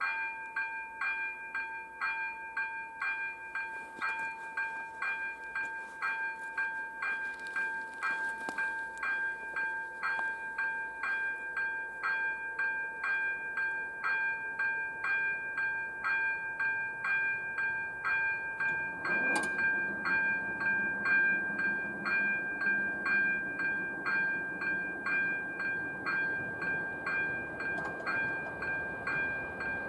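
AŽD 97 level-crossing warning bell ringing in steady strokes, about two a second, starting abruptly as the crossing is activated for an approaching train. About two-thirds of the way through, a click and a low hum join it while the barrier booms lower.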